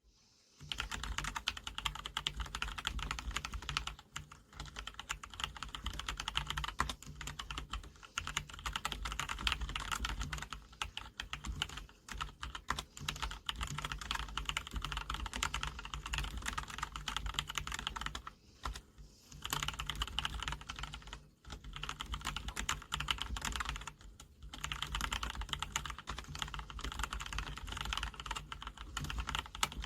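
SteelSeries Apex 3 gaming keyboard with whisper-quiet membrane switches being typed on fast and continuously, a dense run of keystrokes broken by a few brief pauses.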